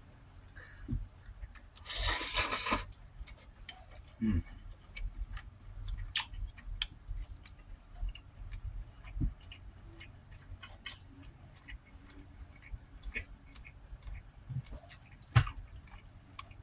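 A person chewing food close to the microphone: wet clicks and smacks scattered throughout, with a loud, hissy burst lasting under a second about two seconds in.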